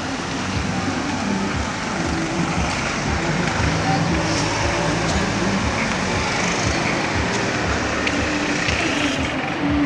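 Steady busy-street traffic noise, with the hum of vehicle engines running on the road.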